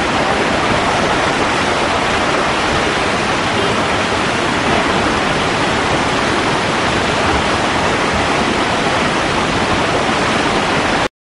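Rushing floodwater of a swollen river: a loud, steady rush of water and spray that stops abruptly near the end.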